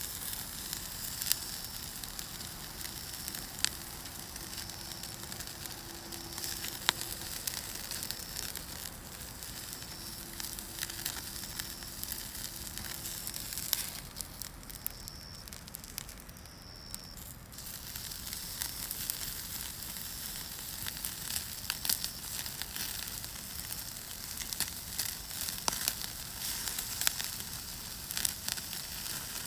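Angus beef steak sizzling on a grill over a wood fire, with the fire crackling and sharp pops throughout. The sound drops a little for a few seconds around the middle.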